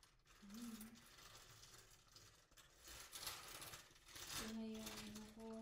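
Faint rustling and crinkling of plastic packaging being handled and unwrapped. A short hum about half a second in, and a steady held hummed note from the last second or so.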